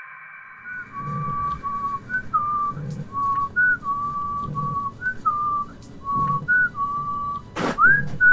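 A person whistling a slow tune of short stepped notes, with soft low thuds every second or so beneath it. Near the end, a sudden loud rush of noise cuts across the whistling.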